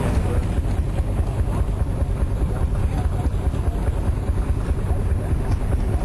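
An engine running with a steady low rumble.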